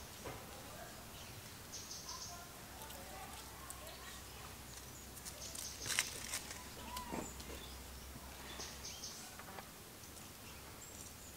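Outdoor ambience with scattered short high bird chirps over a steady low hum, a sharp click about six seconds in, and a short call falling in pitch just after it.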